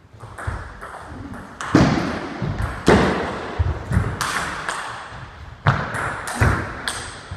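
About ten irregular, loud thumps and knocks close by, not in the even rhythm of a rally, with a few sharper, ping-like clicks among them.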